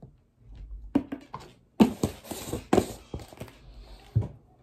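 Plastic knocks and taps from a protein shaker bottle, its lid and scoop being handled as a scoop of protein powder goes in: four sharp knocks about a second apart, with a rustle in the middle.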